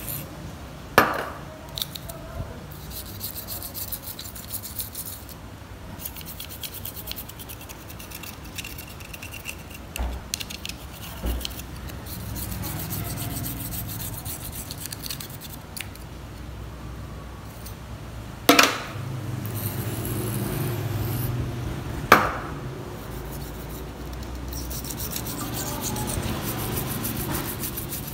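Toothbrush bristles scrubbing a Nokia 1280 phone's circuit board clean in quick back-and-forth strokes, a dry rasping rub. Three sharp knocks cut through it, one about a second in and two more close together later on.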